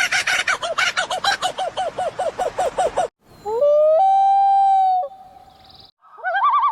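Several different bird calls played one after another: a fast run of repeated rising notes for about three seconds that cuts off suddenly, then a long steady whistled note, and near the end a wavering, warbling call.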